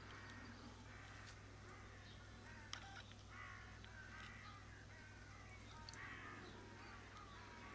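Faint crows cawing in the background, a string of short caws about a second apart, over a low steady hum.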